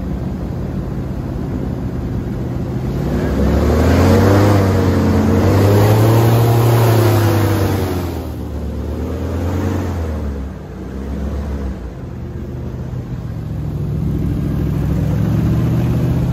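Airboat engine and propeller running at speed, revving up a few seconds in, easing off about halfway through, then building again near the end.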